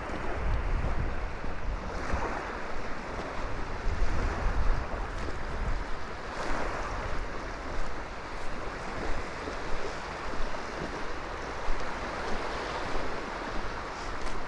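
Small waves washing on the shore, swelling and receding, with wind buffeting the microphone in low rumbling gusts near the start and again a few seconds later.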